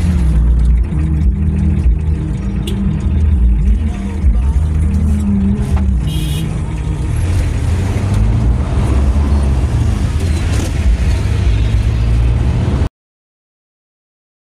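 Steady low rumble of a vehicle's engine and tyres heard from inside the cabin while driving on a highway, with a short high-pitched sound about six seconds in. The sound cuts off abruptly a little before the end, leaving total silence.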